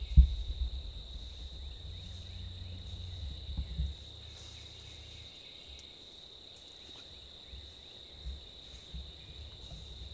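Steady high-pitched insect drone. A sharp low thump comes right at the start, followed by a low rumble that fades out after about four seconds.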